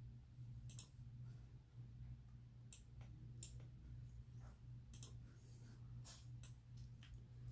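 Near silence with a steady low hum and about eight faint, irregular clicks and taps.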